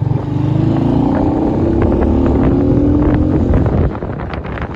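A road vehicle's engine running close by and revving, its pitch slowly rising, then dropping away about four seconds in.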